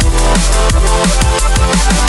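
Electronic drum-and-bass music: a fast beat with drum hits about three times a second over a deep, sustained bass.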